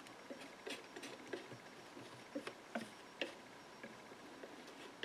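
Faint, irregular soft clicks and scrapes of a thin metal palette knife working wet glue into cracks in a wooden rifle stock.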